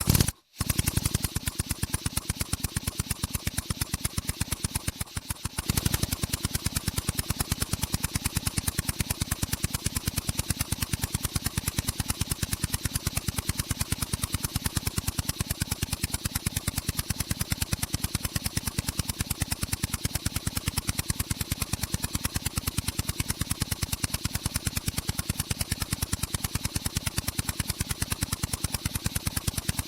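Pneumatic drill (jackhammer) hammering with a rapid, steady rattle of blows. It stops briefly about half a second in, runs softer for a moment around five seconds in, then returns to full strength.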